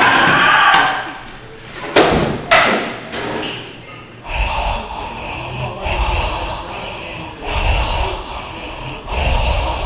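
Two loud thumps about half a second apart, about two seconds in, as students scuffle among school desks.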